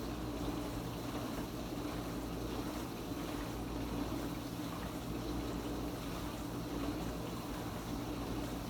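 Kenmore Ultra Wash 3 dishwasher running its quick rinse cycle: a steady motor hum under the rush of water circulating inside the tub.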